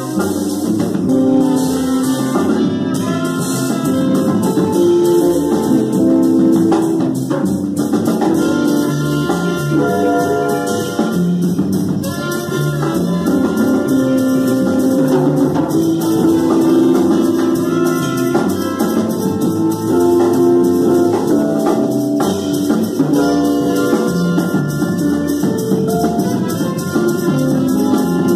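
Small jazz band playing live: trumpet and alto saxophone carry held melodic lines over upright bass and drum kit.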